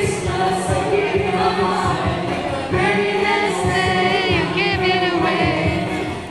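A small mixed group of men and women singing together, choir-style, through microphones and a PA speaker. Around four seconds in a voice holds a wavering note, over a regular low beat of accompaniment.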